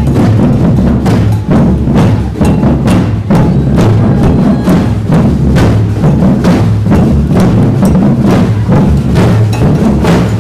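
A large group of street drummers beating many drums together in a busy, steady rhythm of sharp stick hits over deep booming strokes, loud.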